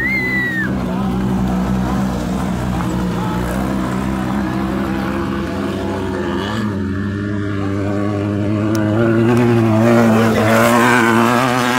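Off-road race buggy engines running as the cars race past on the dirt track. The engines get louder and climb a little in pitch about nine seconds in. A short whistle sounds right at the start.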